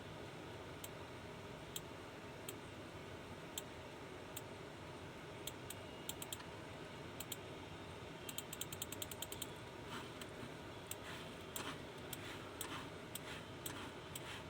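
Sharp, irregular small clicks and taps, with a quick run of about ten clicks near the middle and softer, duller clicks after that.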